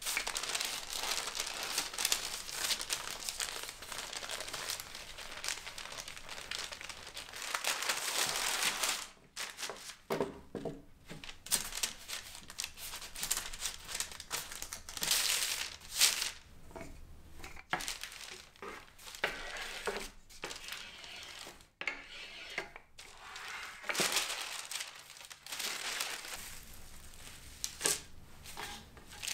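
A wooden rolling pin rolls dough under a sheet of baking paper, a steady rustle for the first several seconds. Then the paper crinkles and rustles in short, irregular spells as hands press the dough into a paper-lined metal tray, ending with a hand rubbing over bubble wrap laid on the dough.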